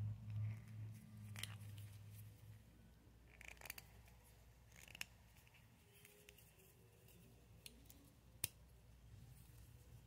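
Sharp metallic clicks from a vintage European slant-bolster switchblade being handled, about five of them spaced a second or more apart, the loudest about eight and a half seconds in.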